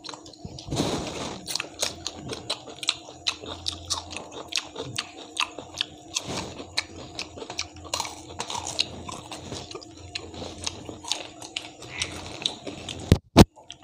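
Close-miked chewing and biting of fried fish eaten by hand, with many small crunches and wet mouth clicks. Near the end there are two louder sharp clicks.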